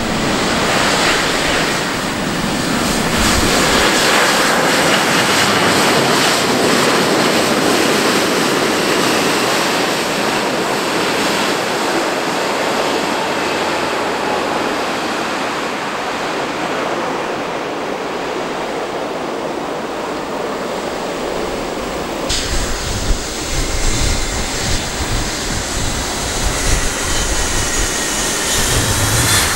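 Boeing 777-200ER's jet engines on landing rollout, a loud steady rush as the airliner decelerates with spoilers up. After about 22 s the sound drops to a lower rumble, with a faint rising engine whine near the end as the jet slows to taxi.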